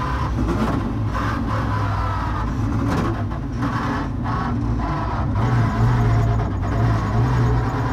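The 5.7-litre Chevrolet LS V8 of an LS-swapped Mazda RX-7 FD drift car, fitted with individual throttle bodies and custom equal-length headers, running at fairly steady revs as the car drives along.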